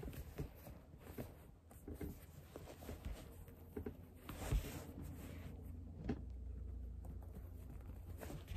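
Cloth rustling and soft knocks from handling a reborn doll while its pants are pulled up over its legs, with the loudest brushing bump about halfway through. A low steady hum runs underneath.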